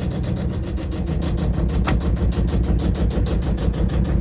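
Yanmar 2QM15 two-cylinder marine diesel chugging in an even, rapid rhythm as it is started after a year laid up. There is a single sharp click about two seconds in.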